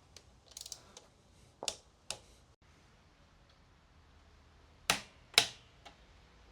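Scattered sharp clicks and light knocks of hand tools and metal parts being handled during engine reassembly: a few small ticks early, then two louder clacks about five seconds in.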